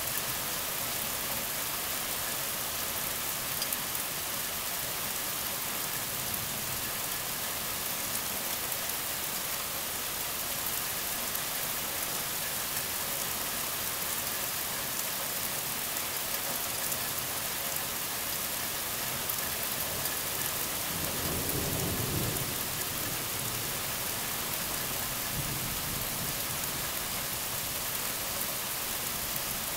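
Heavy rain pouring steadily, with a low rumble of thunder about two-thirds of the way through.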